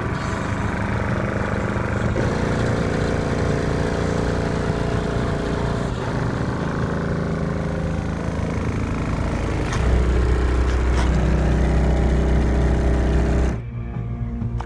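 Two custom 12-inch Sundown ZV4 subwoofers in a ported box tuned to 32 Hz play heavy, sustained bass notes at high volume, with the door speakers carrying the upper notes. About ten seconds in, a deeper and louder bass note takes over. It cuts off suddenly about a second before the end.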